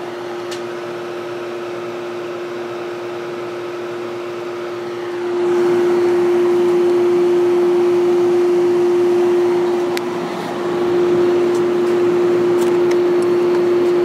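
1970s Whirlpool 6,000 BTU window air conditioner running: its Seeger rotary compressor gives a loud, steady hum over the rush of the fan's airflow through the condenser. It gets louder about five seconds in and dips briefly about ten seconds in.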